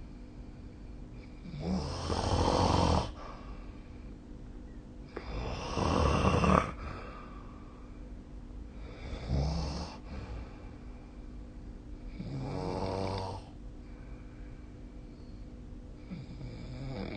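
A sleeping person snoring: about five snores, one every three and a half to four seconds, the second the loudest, with a faint steady hum between them.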